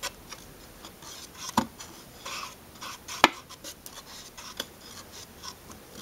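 Fingertip rubbing oil onto the rubber gasket of a new oil filter, with a few light clicks and taps from handling the filter in its cardboard box, the sharpest one about three seconds in. The oiled gasket is being prepared so the filter seals when it is screwed on.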